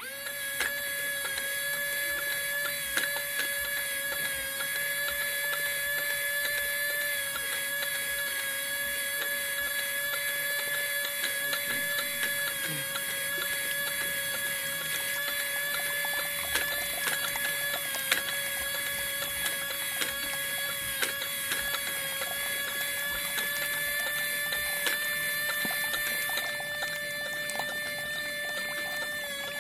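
Small geared DC motor, run off a 9-volt battery, whining steadily at one even pitch as it drives a model well pump through a string pulley, with scattered faint clicks. It starts as the battery clip is pressed on.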